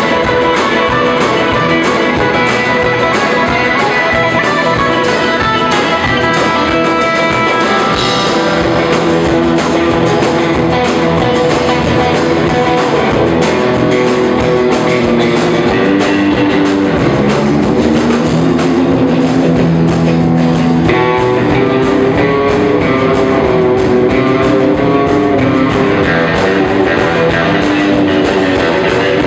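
Live country band playing an instrumental passage: an electric guitar takes the lead melody over bass guitar and a drum kit keeping a steady beat. No singing.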